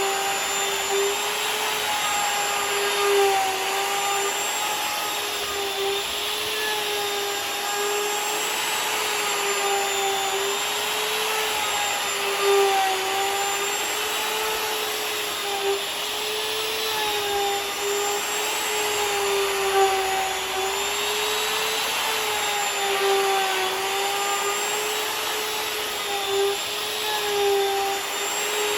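Electric router running steadily while milling a walnut tabletop flat, a high whine over hiss whose pitch dips and recovers slightly as the bit takes the wood.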